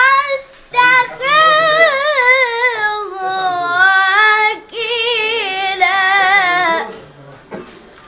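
A boy's high voice chanting Quranic recitation in the melodic tajweed style: three long, ornamented phrases with wavering pitch, the last ending about seven seconds in.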